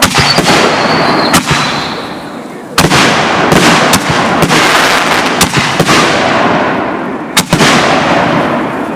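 Fireworks going off: a string of sharp, loud bangs, roughly one or two a second, with dense crackling filling the gaps between them. A faint high whistle runs through the first second or so.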